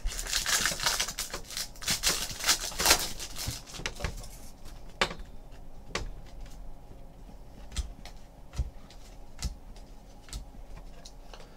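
Foil wrapper of a Diamond Kings baseball card pack crinkling and tearing as it is ripped open by hand, for about four seconds. Then scattered light clicks and snaps as the cards are slid and flicked through one by one.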